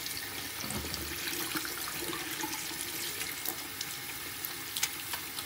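Water running from a bathroom sink tap and splashing over a small monkey's head into the basin: a steady, even hiss of running water.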